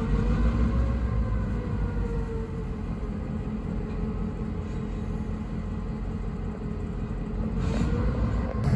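Norfolk Southern diesel locomotive running with its freight train of covered hoppers, a steady low rumble with faint wavering tones over it.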